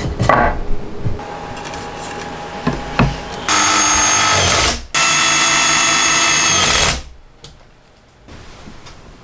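Power drill run at a steady speed in two bursts, about one second and then about two seconds long, working into a wooden board. Before it come a few knocks of wood against wood as the board is set in place.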